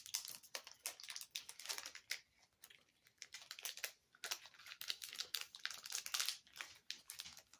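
Plastic snack wrapper crinkling and crackling in irregular bursts as it is handled and opened.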